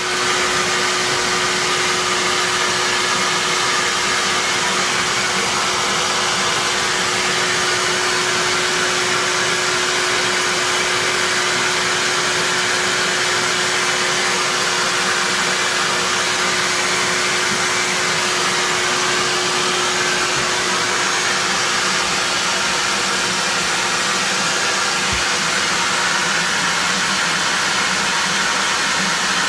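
Steady, loud rush of machine noise with a motor hum. It starts abruptly just before, and the hum fades out about two-thirds of the way through while the rush carries on.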